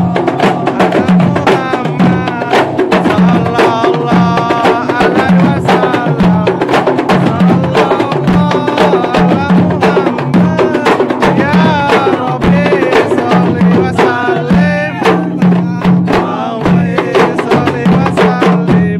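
A kompang ensemble of hand-beaten frame drums playing a fast, dense interlocking rhythm in the Jambi–Palembang beat, with a big bedug drum sounding a repeating deep pulse underneath and voices chanting over the drumming. The playing stops at the very end.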